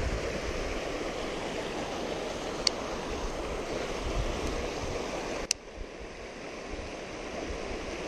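Creek water running over a rocky riffle, a steady rushing, with one sharp click about five and a half seconds in.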